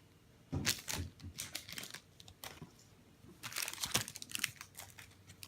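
A foil trading-card pack wrapper crinkling as it is handled, in two spells of short, sharp crackles.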